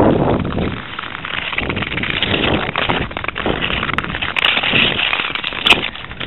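Ice skate blades scraping over rough pond ice in repeated strokes, with a few sharp clicks.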